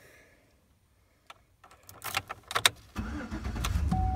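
A few clicks, then about three seconds in the Chevy Silverado's 5.3-liter V8 starts and settles into a steady idle.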